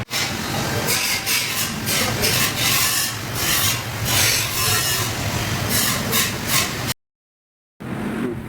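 Repeated rubbing strokes of hand sanding on car bodywork, about two strokes a second, stopping abruptly about seven seconds in.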